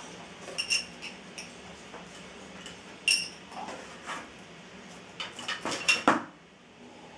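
Plastic Connect 4 counters clicking and clinking against the plastic game frame as a dog mouths one and drops it into a slot. Scattered single clicks give way to a quick run of louder clicks about five to six seconds in.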